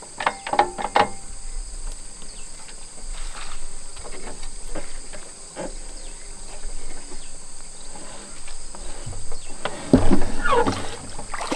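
Insects chirring steadily in the grass, with scattered clinks and knocks of hand tools on an old diesel engine: a quick run of knocks in the first second and a louder clatter about ten seconds in.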